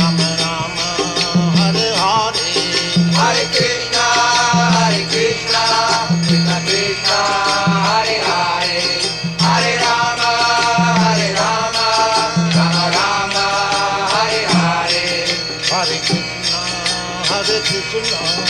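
Devotional kirtan: voices chanting in song over jingling hand cymbals, with a low beat repeating about every second and a half.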